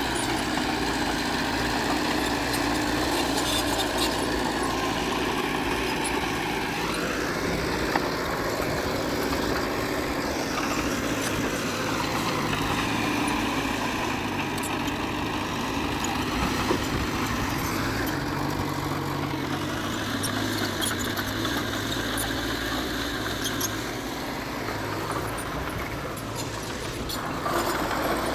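Diesel engines of heavy earthmoving machinery, a bulldozer and dump trucks, running continuously. The engine pitch rises and falls several times as the throttle changes, with a climb near the end.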